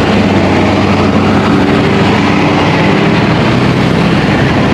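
Vehicle engine running steadily at road speed, with a low hum under continuous road noise.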